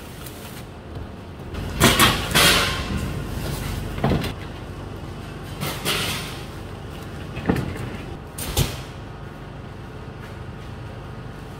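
Paper-wrapped bales of dried stalks being handled and stacked: dry rustling and crackling with dull knocks, in about five separate bursts, the loudest about two seconds in, over a steady low hum.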